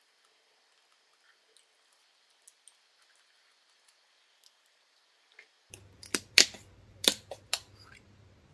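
A plastic water bottle is handled, and it gives off a quick cluster of sharp crackling clicks about six seconds in. Before that there are only a few faint light ticks.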